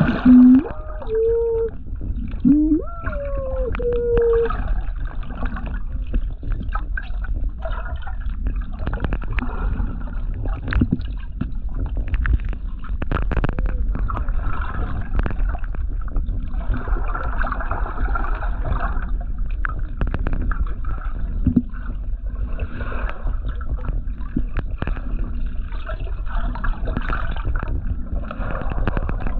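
Underwater ambience: a steady low rumble of moving water with scattered crackling clicks. In the first few seconds a handful of short squeaky calls glide up and down in pitch, the first one loudest.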